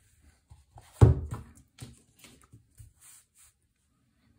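An iPad in its case set down on a desk with one solid thud about a second in, followed by a few light taps and handling noises.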